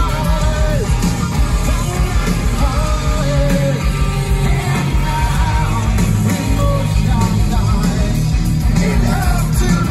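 Live heavy rock band playing through a stadium PA: a male lead singer's vocals over electric guitars, bass and drums, heard loud from within the crowd.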